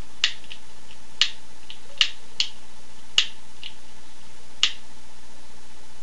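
A lighter being clicked repeatedly: five sharp clicks spaced about a second apart, some followed by a softer click.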